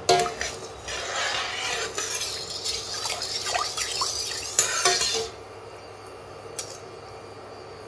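A steel ladle clinks against a stainless steel pot, then stirs sugar and water for about four seconds, swishing the liquid and scraping the pot, to dissolve the sugar for syrup. The stirring stops about five seconds in.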